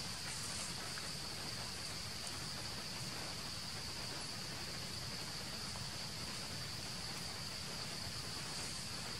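Steady insect chorus: a continuous high buzz with no break, over a low, even background rumble.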